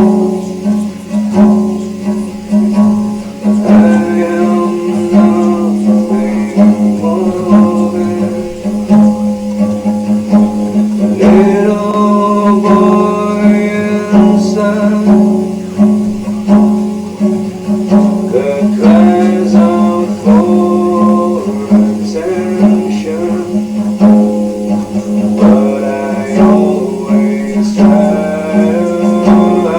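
A blues song: singing over guitar accompaniment, with a steady low note held underneath throughout.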